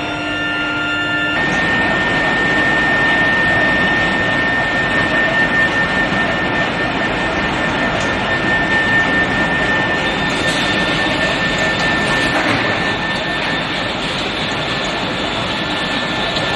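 Steady, loud roar of heavy factory machinery with a constant high-pitched whine over it, on a hot-rolling line with an induction heating furnace. The sound changes abruptly about a second and a half in.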